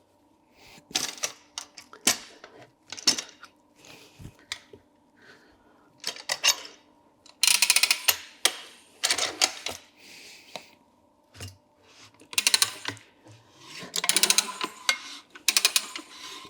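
A stiff adventure-bike tyre being levered off a spoked motorcycle rim on a manual tyre changer: irregular clicks, knocks and rasping scrapes of the rubber bead against the duck head and rim.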